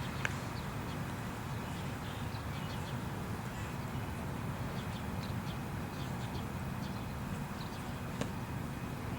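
Steady outdoor ambience at a ball field: a low rumbling haze with faint scattered chirps and ticks, and one small click about eight seconds in.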